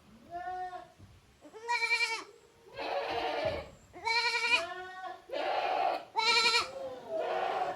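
Young goat kids bleating over and over, about seven calls in a row, some clear and high-pitched, others hoarse and breathy.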